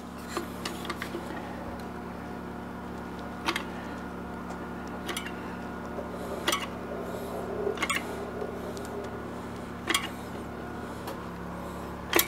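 Caulking gun laying a bead of glue along wall framing: a short sharp click every second and a half or two as the trigger is squeezed again, over a steady low hum.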